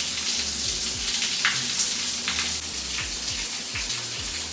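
Overhead rain shower head running: a steady hiss of water spraying down.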